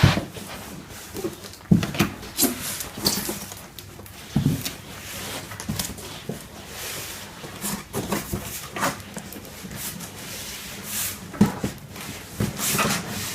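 A cardboard box and its packaging being handled as a self-balancing scooter is worked out of a tight-fitting box: scraping and rustling cardboard with scattered knocks and bumps.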